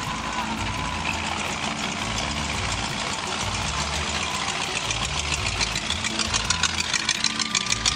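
Classic cars driving slowly past with engines idling. Near the end, a rat-rod pickup's engine comes close, its exhaust pulsing in a loud, even beat of about four a second.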